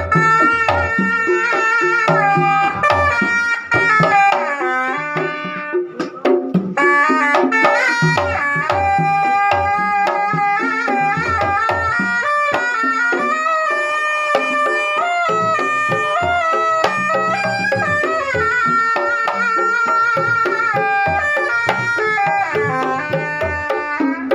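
Traditional music: hand drums playing busy rhythmic patterns under a sustained, heavily ornamented melody line, with a brief drop-out about six seconds in.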